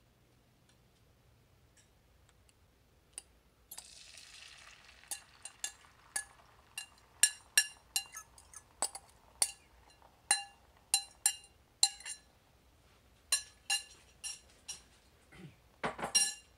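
Beaten egg poured into a hot cast iron skillet with a brief hiss, then a metal fork tapping and scraping against a glass bowl in a long string of ringing clinks as the last of the egg is scraped out. A louder clatter of clinks comes near the end.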